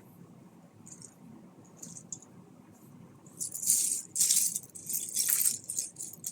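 Small plastic Lego pieces rattling inside plastic parts bags, with the bags rustling as they are shaken and handled. The rattling starts about three seconds in and comes in uneven bursts for a few seconds.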